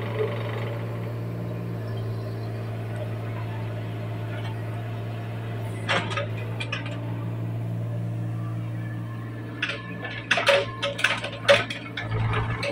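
Hyundai Robex 27Z-9 mini excavator's diesel engine running steadily while the machine works. A few metallic clanks come about halfway through, then a run of louder clanks and rattles from the moving arm and bucket gear near the end.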